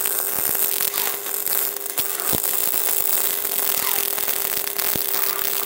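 MIG welding arc from a Tenjo Smart Mix 232 welder crackling steadily as it lays a bead with wire-fed electrode, with a steady hum underneath and a few sharper pops.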